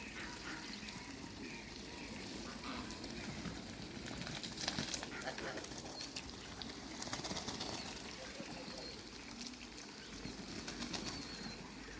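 Farmyard birds moving about with wings flapping in bouts, and soft low calls among them.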